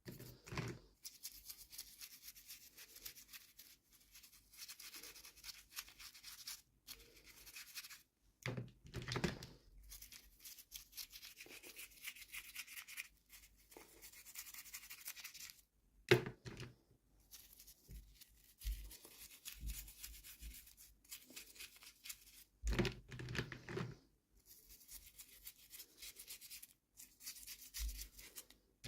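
Toy packaging being handled and opened: stretches of rustling and crinkling, broken by a few sharp knocks and clicks. The loudest knock comes about halfway through.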